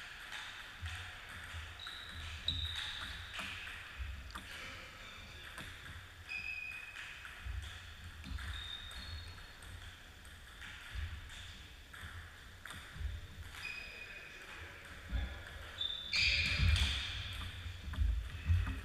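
Table tennis play: the ball clicking off the rackets and the table in quick, irregular exchanges, with footsteps thumping and short high shoe squeaks on the wooden floor. The activity is busiest near the end.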